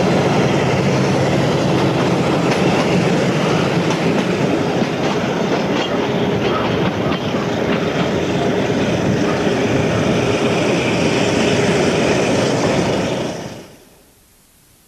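Train in motion, heard from the roof of a carriage: steady rolling and clattering noise of the wagons on the rails. It fades out near the end.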